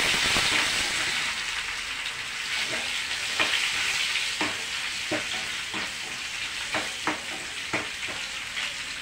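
Sliced onions sizzling in hot tempering oil in a small kadai, the sizzle strongest at the start and easing off as they sauté. A steel ladle stirs them, with taps against the pan about once a second.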